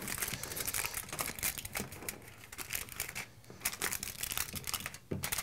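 Aluminium foil crinkling as it is folded and creased by hand into a small square raft, an irregular run of crackles that goes quieter for a while in the middle.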